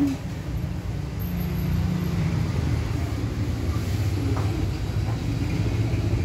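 Electric hair clippers buzzing steadily while trimming short hair.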